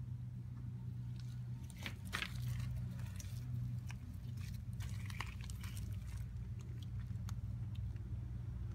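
Small crunching clicks from a cat tussling with a praying mantis on gravel, biting and pawing at it, coming in two clusters about two and five seconds in, with a few single clicks later. A steady low hum runs underneath.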